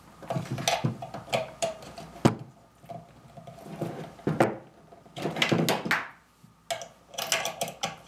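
Handling noise from a coiled AES audio cable and its XLR connectors being plugged in: irregular rustling and clicking, with two sharp knocks about two and four seconds in.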